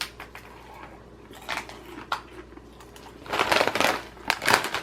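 A few light clicks, then short bursts of crinkling and crunching in the second half: a plastic snack bag being handled and coconut-flavoured popcorn being eaten.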